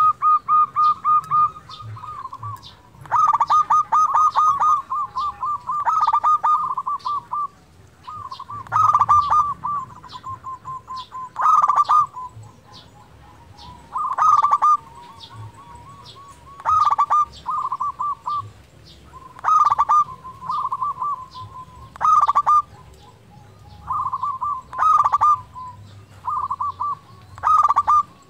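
Zebra dove (perkutut) singing: repeated phrases of rapid staccato cooing notes, each opening with a louder burst and trailing off, a new phrase every two to three seconds.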